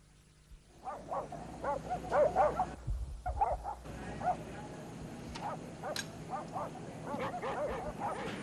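Several dogs barking and yipping in short, overlapping calls, starting about a second in.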